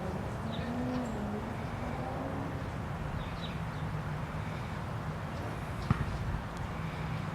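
Outdoor backyard ambience: a steady low rumble with birds calling faintly, and a single sharp click about six seconds in.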